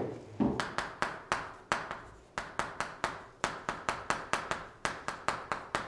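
A rapid, uneven run of sharp taps, about three or four a second, from writing strokes on a board.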